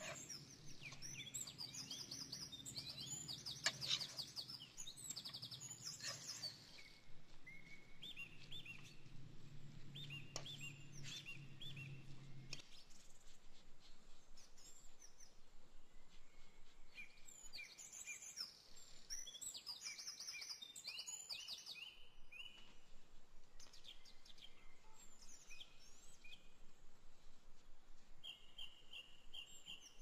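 Small birds chirping and singing in repeated short trills. In the first few seconds a spoon clicks and scrapes against a metal pan, and a low steady hum underneath stops suddenly about twelve seconds in.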